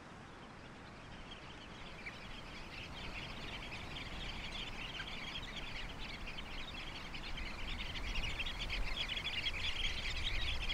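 A flock of small shorebirds twittering in a dense chatter of rapid, high calls that fades in and grows louder, over a low rumble that builds from a few seconds in.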